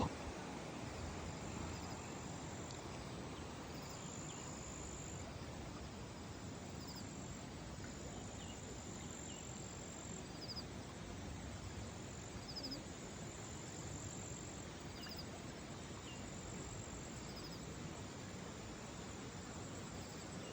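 Outdoor nature ambience: a steady background hiss with high-pitched insect trills that start and stop in stretches of a second or two, and a few short, faint chirps in between.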